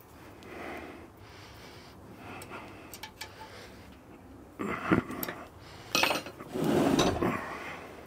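Small metal fittings and tools clinking and rubbing as they are handled, with louder clattering about halfway through and again near the end.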